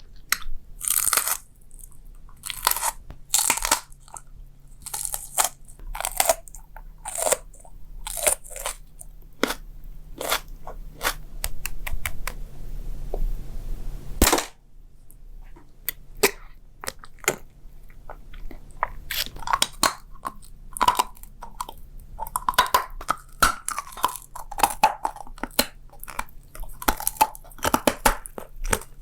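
Close-miked eating: irregular crisp crunches and bites with chewing, a short lull with one sharp crack partway through, then denser, wetter chewing in the second half.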